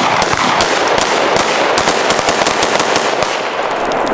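Rapid, overlapping gunfire from a line of shooters firing AR-15-style rifles together, many shots a second. The shooting thins out and stops shortly before the end.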